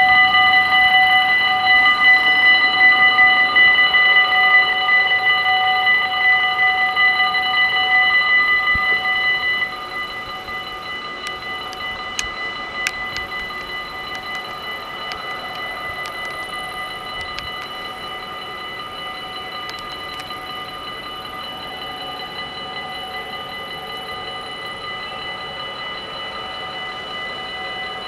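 Level-crossing warning bells ringing steadily while the half-barriers come down. About ten seconds in, the louder ringing stops and fainter ringing carries on.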